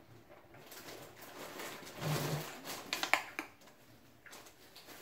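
Drinking from a plastic bottle, with a louder gulping stretch about two seconds in. A few sharp plastic clicks and taps follow about three seconds in as the bottle is handled.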